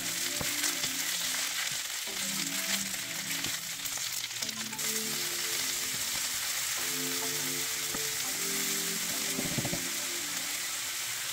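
Spinach and garlic sizzling in hot oil in a nonstick skillet, a steady hiss, stirred now and then with a wooden spatula. Soft background music plays underneath.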